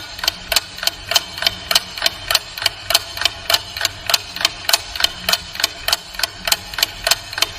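Clock ticking steadily with sharp, evenly spaced ticks, about four a second, alternating slightly stronger and weaker beats.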